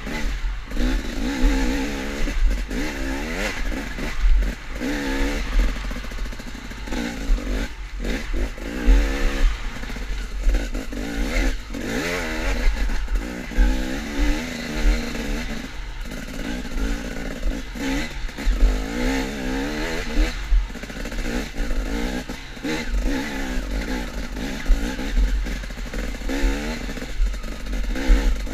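KTM off-road motorcycle engine, heard close from the bike, revving up and falling back again and again as it is ridden hard along a rough woods trail, with clattering knocks from the bike over the ground and a constant deep rumble on the microphone.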